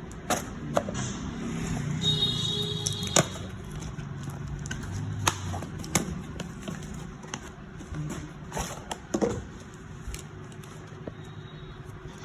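Handling of a new iPhone 12 and its box during unboxing: irregular sharp taps and clicks of the packaging and phone being handled, over faint background music.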